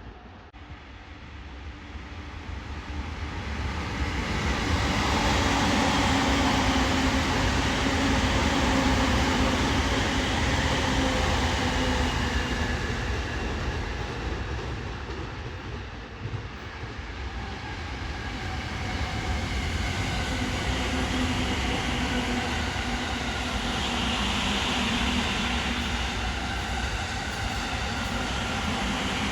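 Electric commuter trains passing close by, wheels and motors running on the track. The sound swells over the first few seconds, holds, dips briefly about halfway, then swells again as another train, or more of the same one, goes by.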